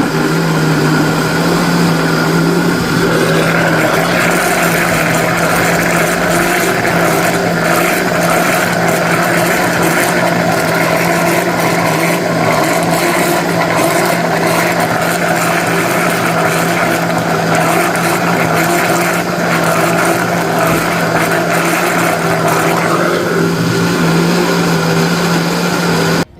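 Countertop blender running steadily, with a constant motor hum, as it blends a liquid mixture of cream, condensed milk, coconut milk and flaked coconut. It switches off abruptly near the end.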